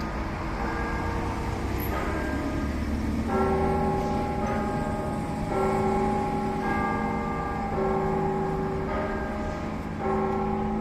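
Orthodox church bells ringing: several bells of different pitch struck one after another, a new stroke about every second or so, each note hanging on and overlapping the next. A low rumble sits underneath during the first few seconds.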